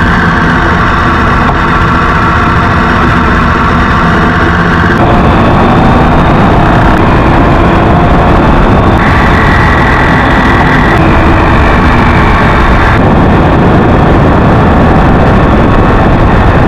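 Vehicle driving on a wet mountain road: a loud, steady mix of engine and tyre noise, with the pitch of the engine tones shifting in steps a few times.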